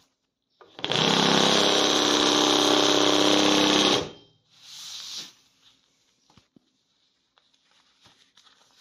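Hair injection (ventilating) machine, a sewing-machine-style needle machine, running at a steady speed for about three seconds and then stopping as it punches hair into a wig base. A shorter, quieter burst follows about a second later, then only faint handling clicks.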